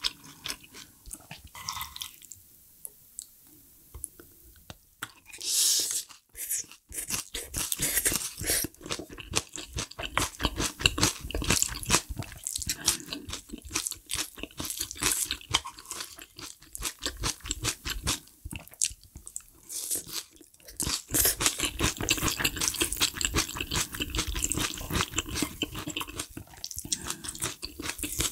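A person chewing and crunching food close to the microphone, with wet mouth sounds and crackles. There is a quieter pause about two seconds in, then the chewing picks up again.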